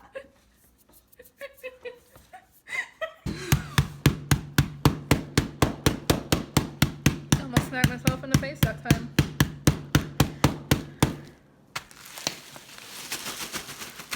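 Music with a steady beat: sharp clicks about four a second over a low held note, starting about three seconds in and stopping about eleven seconds in.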